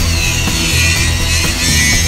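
Angle grinder with a standard abrasive disc grinding the edge of an aluminium bar: a steady high grinding hiss with a wavering whine. A steady music beat plays underneath.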